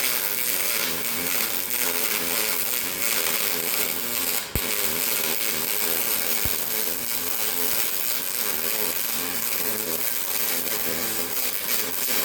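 MIG welding arc on aluminium wire under pure argon shielding gas, a steady loud hiss. It breaks off for a moment about four and a half seconds in and picks straight up again.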